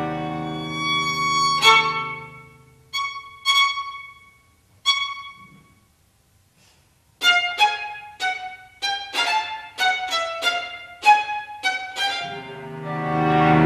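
Violin, viola and cello trio playing contemporary classical music: a held chord fades out, a few short, separate notes ring and die away, and after a brief pause a quick run of short detached notes follows. Near the end the low strings swell into a loud sustained chord.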